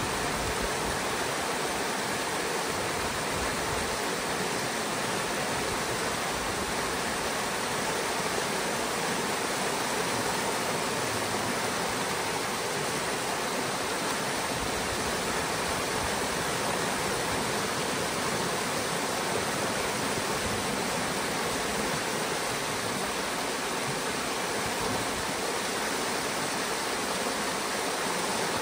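Water rushing steadily through a breach in a beaver dam, the pond draining out through the gap in white rapids.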